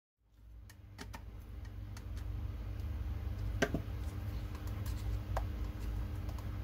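Scattered light clicks and taps as a screwdriver tightens the screws and the hard-plastic parts of a 3D-printed iris valve are handled, with one sharper click about three and a half seconds in. A low steady hum runs underneath.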